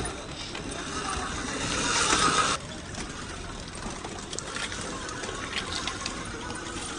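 Axial SCX10 II RC crawler's 550 brushed electric motor and geared drivetrain whining under throttle. The whine builds and then stops abruptly, followed by lighter mechanical ticks and clicks.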